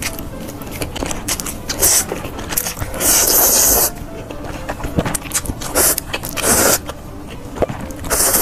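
Spicy instant fire noodles being slurped up in several hissing pulls, the longest lasting about a second near three seconds in, with wet chewing and mouth clicks close to the mic in between.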